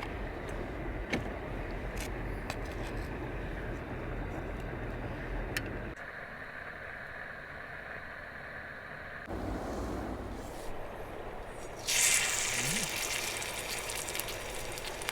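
A campfire crackling with sharp scattered pops over a low rumble; near the end, slices of pork belly start sizzling loudly as they hit the hot cooking surface over the fire, with fat spattering.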